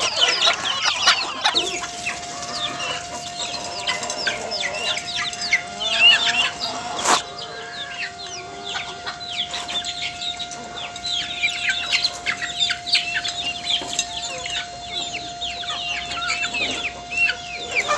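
A flock of young chickens calling constantly, many short high peeps and cheeps overlapping one another, with some lower clucks. A steady thin tone runs under them from about a second and a half in, and there is one sharp click about seven seconds in.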